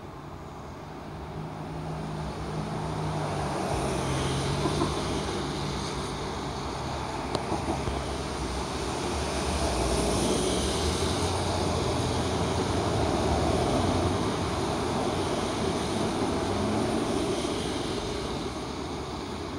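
Distant engine noise, swelling and fading slowly over several seconds, with a low hum in the first few seconds.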